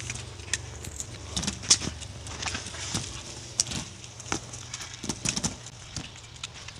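A dog gnawing and tugging at a thick, frayed rope swing: irregular crackles and snaps of the rope fibres under its teeth.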